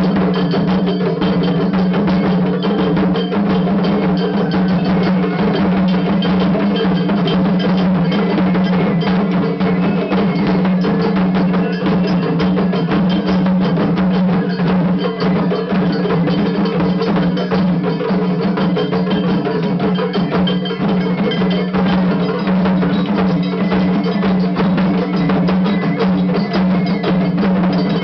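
Japanese festival hayashi bands on several floats playing against each other at once in a butsukke contest: rapid, dense clanging of small hand gongs (kane) over taiko drums, without a break.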